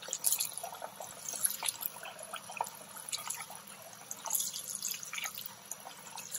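Tap water running into a stainless steel bowl of sago pearls while a hand swishes them around to rinse them, with many small irregular splashes and drips.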